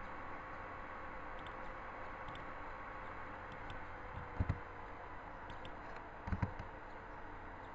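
ATC CNC router running, a steady hiss with a faint humming tone that sags slightly in pitch. Two dull low thumps come about four and six seconds in.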